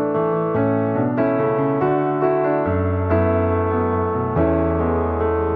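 Background music: a gentle piano tune with sustained bass notes.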